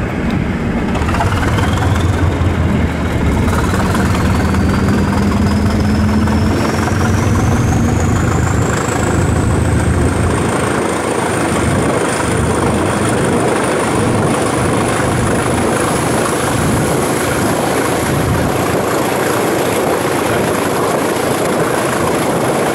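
Diesel train heard from an open carriage window while under way: a low engine rumble with a high whine that climbs steadily in pitch for about fifteen seconds and then holds, over a steady rush of rolling and wind noise.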